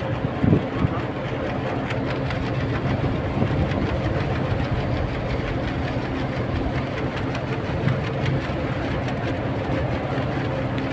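A heavy engine running steadily: an even low rumble with a constant hum under a rushing noise.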